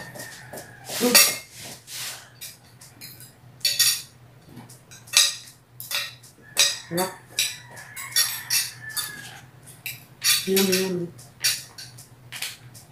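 Spoons and forks clinking and scraping against glass plates during a meal, a string of irregular sharp clinks.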